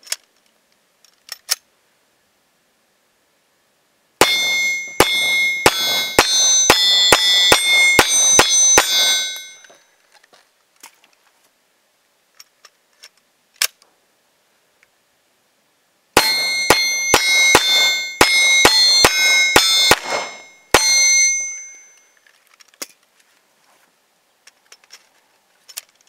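Glock 17 9mm pistol fired in two rapid strings of about a dozen shots each, roughly two to three shots a second, with a pause between. Steady ringing tones run under the shots as the bullets strike AR-500 steel targets, with faint clicks of gun handling in the quiet gaps.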